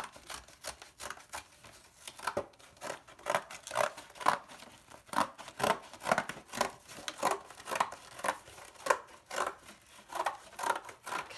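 Scissors cutting through thin cereal-box cardboard: a steady run of snips, about two a second.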